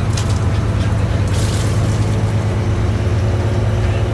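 Fishing boat's engine running with a steady low drone, with a brief hiss about a second and a half in.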